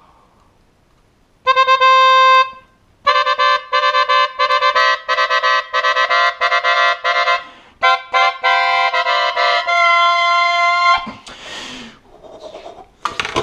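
Saxophone played solo: one held note, a short pause, then a quick run of short notes that stops about eleven seconds in.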